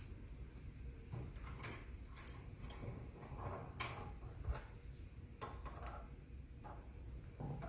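Light clicks and clinks of metal parts being handled, several with a brief high ring, the sharpest about four seconds in.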